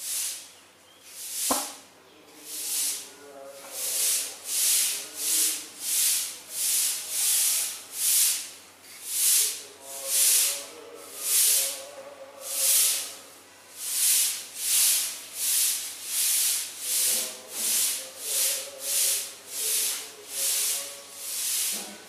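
Rhythmic high hissing pulses, slow at first and then close to two a second, with a single sharp click about a second and a half in.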